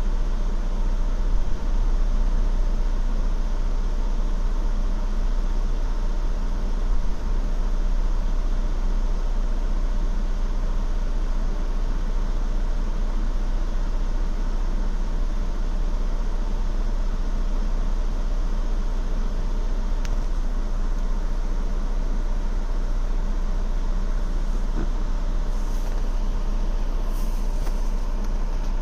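2016 Ford Explorer Limited engine idling with a steady low rumble; the owner is recording it for a rough idle.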